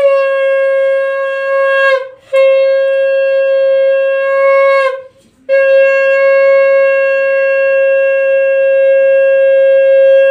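Conch shell (shankha) blown in three long, steady, loud blasts, split by short breaks for breath about two and five seconds in. The blowing is the ritual sounding of the conch at a Hindu puja offering.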